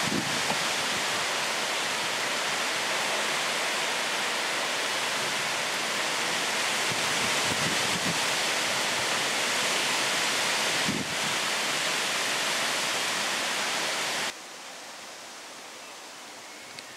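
Heavy thunderstorm downpour with storm wind: a dense, steady roar of rain. About fourteen seconds in it cuts off abruptly to a much quieter steady hiss.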